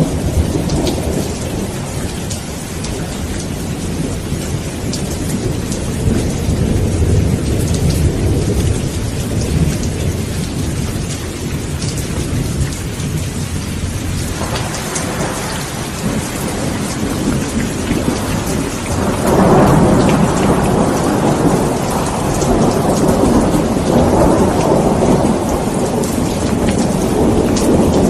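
Steady rain with rolling thunder. The low rumble runs through the first half, then a louder roll of thunder swells in about two-thirds of the way through and carries on.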